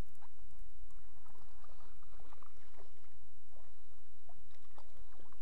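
A hooked bass splashing at the surface as it is reeled in on a baitcasting reel, in short irregular bursts, with steady wind noise on the microphone.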